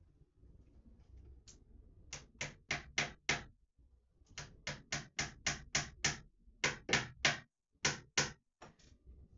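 Hammer tapping fasteners into the wall to hold up a string of LED strip lights: about twenty sharp strikes in quick runs, roughly three a second, with short pauses between runs.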